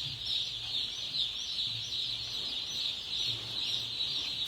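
A large flock of chickens calling all at once: a dense, continuous chorus of many overlapping high-pitched calls, with a faint low hum underneath.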